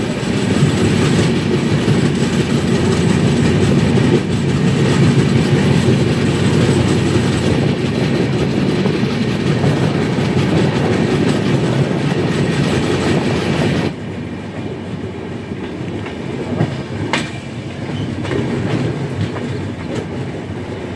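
A passenger train running at speed, heard from an open coach door: the clatter of wheels over rail joints mixed with rushing air. About 14 seconds in, the noise drops suddenly to a quieter run, with a few sharp clicks after.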